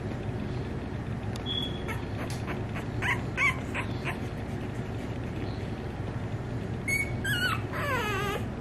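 Four-week-old American bully puppies whimpering: a few short high squeaks between about two and four seconds in, then a run of whines near the end, the last a longer cry falling in pitch.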